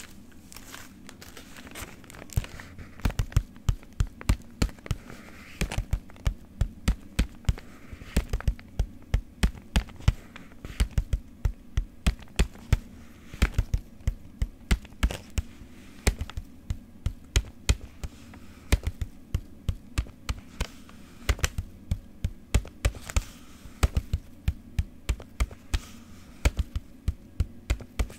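Close-miked rhythmic tapping on a hard object, in short runs of quick taps with brief pauses between them. Each tap has a sharp click on top of a dull thud.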